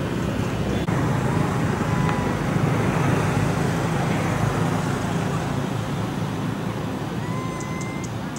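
Low, steady rumble of road traffic that swells a couple of seconds in and slowly fades toward the end, like a vehicle passing by.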